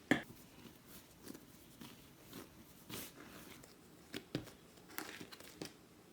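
Scattered light taps and clicks with faint rustling, as of hands handling things on a kitchen counter.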